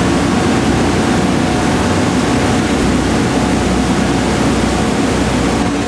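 Ferry's engine droning steadily with a low hum, heard from inside the passenger cabin.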